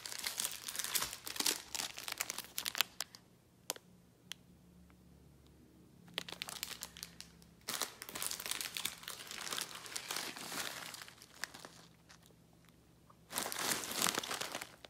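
Clear plastic bags of baked goods crinkling as they are picked up and moved around, in three spells of rustling with short quiet gaps between them.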